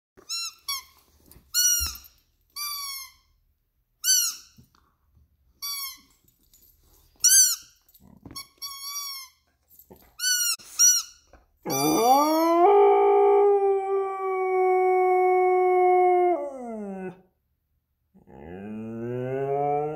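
A plush squeaky toy squeaks about a dozen times in short, high, arching squeaks as a Lapponian herder/husky mix chews it. The dog then gives one long howl lasting about five seconds that rises, holds steady and falls away at the end. Near the end a lower, rising howl-like sound begins.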